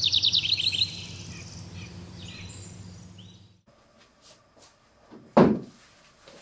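Sound effects over an animated intro: a quick run of bird-like chirps in the first second, over a steady low hum that fades and cuts off about three and a half seconds in. Then quiet room tone, with a single dull thump about five seconds in.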